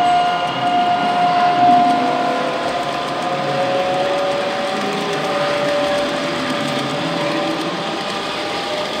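Gauge 1 (1:32-scale) model trains running on track: the steady electric whine of the model locomotives' motors and gearing, over the rumble of wagon wheels rolling on the rails. One whine fades after about two seconds while a lower one slowly rises in pitch.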